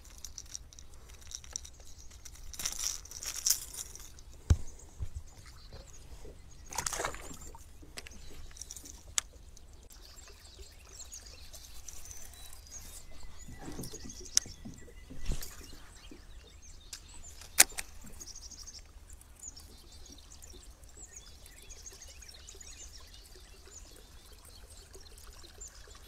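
Quiet, scattered handling sounds on a kayak as a caught bass is dealt with: brief splashes and drips of water, with a few sharp clicks and knocks of gear.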